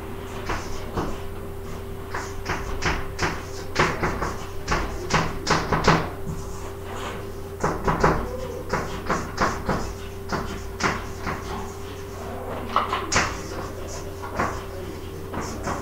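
Chalk writing on a blackboard: quick, irregular taps and short scrapes of the chalk, several a second, over a steady hum.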